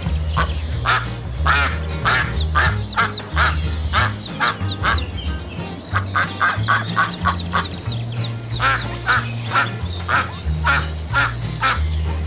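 A mallard hen quacking over and over, partly in quick runs of several quacks a second, over background music with a low bass line.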